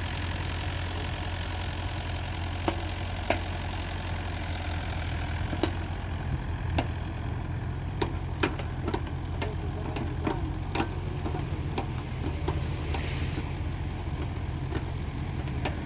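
Excavator's diesel engine running steadily at a low hum, with scattered sharp metallic clanks and knocks, more of them in the second half.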